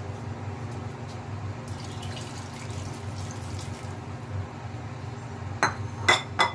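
Water poured from a bowl into a pot of chicken tinola broth, over a steady low hum. Near the end come three sharp clinks, the loudest sounds.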